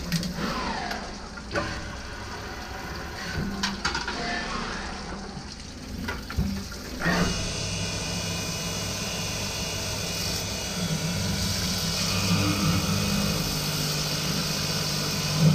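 Automatic drilling and chamfering machine working on a valve lifter, with a steady motor hum under coolant running over the part. A few knocks and clicks come in the first seven seconds, and a steady hiss sets in about seven seconds in.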